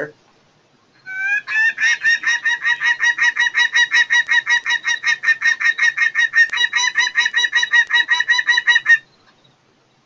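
Prairie falcon calling: a long, rapid run of harsh, evenly repeated notes, about six or seven a second, starting about a second in and lasting about eight seconds. It is a call heard mostly close to a nest, a good sign of a nesting pair.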